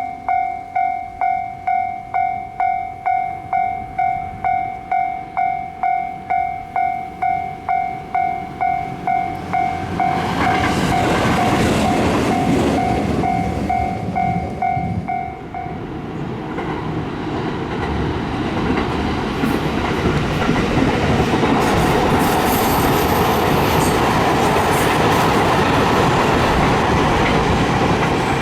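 Japanese railway level-crossing warning bell, an electronic tone ringing about twice a second, which stops about 16 s in. A train passes over the crossing from about 10 s in, with loud, steady wheel-on-rail noise that lasts to the end.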